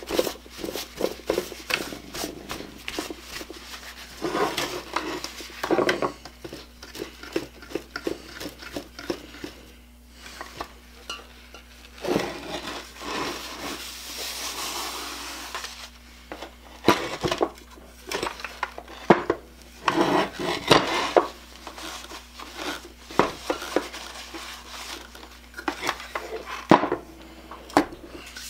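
A Black & Decker router's plastic housing being handled on a wooden workbench: scattered clicks and knocks as it is turned and set down, with stretches of rubbing as a paper towel wipes the dirt off it.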